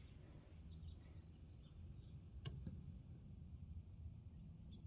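Near silence: a low background hum with faint bird chirps and one light click about halfway through.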